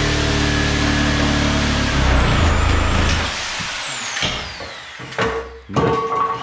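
Reciprocating saw cutting through a wooden board. About three seconds in it stops and its whine winds down. A few sharp knocks and clatters follow as the cut-free boards fall one after another like dominoes.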